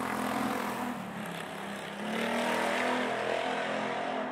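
Jet engines of an Airbus A350-900 (Rolls-Royce Trent XWB) running at low ground power: a steady whine of several tones over a hiss, growing louder about two seconds in.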